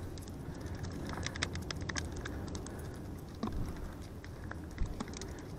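Irregular light clicks and taps as freshly caught mackerel are handled and unhooked over a plastic bucket of fish, with a steady low rumble underneath.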